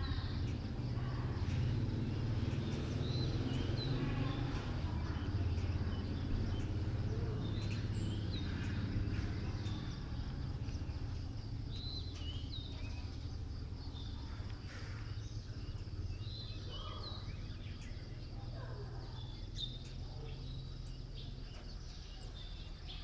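Early-morning outdoor ambience: scattered short bird chirps and calls over a steady low rumble, with a faint continuous high insect drone.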